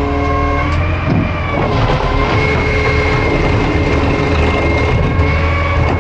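Garbage truck's hydraulic pump whining over the rumble of the revved diesel engine while the automated side-loader arm lowers a cart back to the ground. The whine shifts in pitch about a second in, then holds steady.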